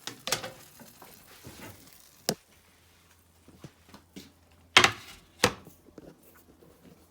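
Kitchen utensils knocking against a frying pan and a cutting board as a grilled cheese sandwich is moved from the pan to the board: scattered clacks, with two sharp knocks about five seconds in.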